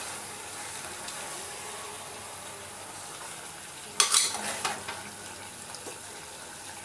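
Chicken curry sizzling in a pan as it is fried down, with a spoon scraping and clattering against the pan once about four seconds in.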